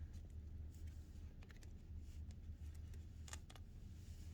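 A few light clicks of laptop parts being handled during reassembly, over a steady low hum.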